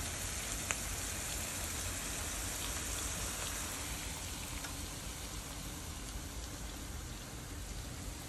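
Hot oil sizzling steadily in a frying pan of sautéing onion, sweet pepper, scallion and tomato and in a pot of frying dumplings, with a few faint pops.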